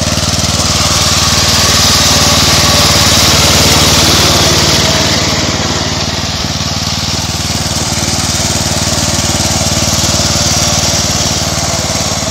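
Riding lawn mower engine on an MTD lawn tractor running steadily under load. It swells louder twice, about four seconds in and again near the end.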